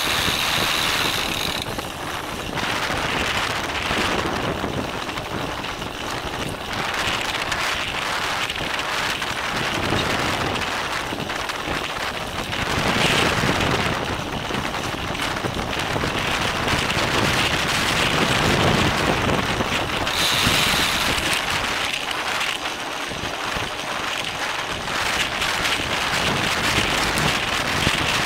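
Wind rushing over the microphone of a camera mounted on a racing bicycle, mixed with tyre and road noise, rising and easing as the riding speed changes.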